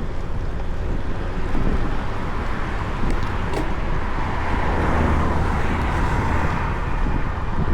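Steady rush of wind and road noise from a bicycle riding on asphalt, with traffic noise that swells about five seconds in.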